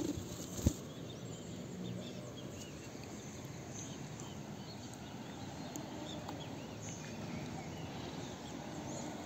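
Birds chirping: many short, faint chirps scattered throughout over a low steady background noise, with one sharp knock under a second in.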